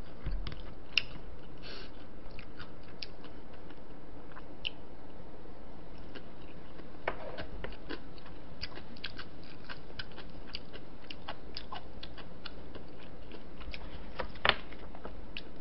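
Close-miked chewing and biting sounds of someone eating, with many small wet clicks of the mouth scattered throughout and a sharper tap near the end.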